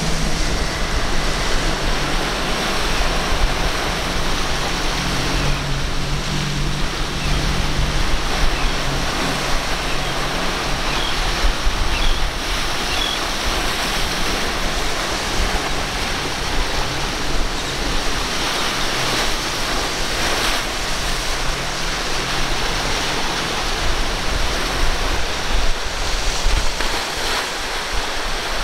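Waves breaking and churning in a rough inlet, with wind on the microphone. Outboard motors of boats running through the chop drone low beneath the surf, most plainly in the first third and again a little past halfway.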